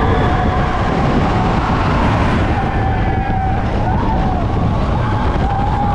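Expedition Everest roller coaster train running along its track: a loud, steady rumble with a thin wavering higher tone over it.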